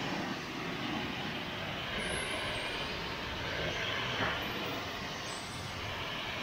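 Pressure washer spraying water on the front bumper, skid plate and winch mounting plate of a Jeep: a steady rushing spray.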